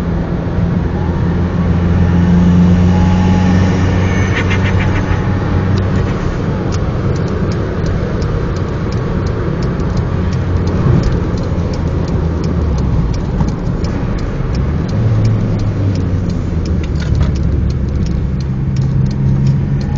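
Toyota Starlet Glanza's turbocharged four-cylinder engine running, its revs rising and falling. A quick fluttering chatter from the turbo comes about four seconds in, followed by many short sharp ticks.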